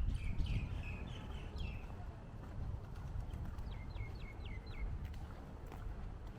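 Small birds chirping: short downward chirps through the first two seconds, then a quick run of five near the middle, over a low steady outdoor rumble.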